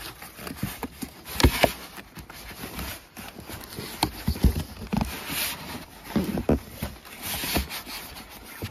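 Cardboard box and styrofoam packing being handled: irregular knocks, thumps and scraping with rustling of the foam wrap, the loudest thumps about one and a half seconds in.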